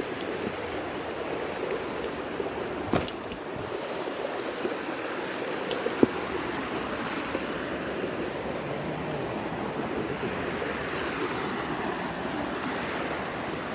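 Mountain stream rushing steadily, with two brief sharp knocks about three and six seconds in.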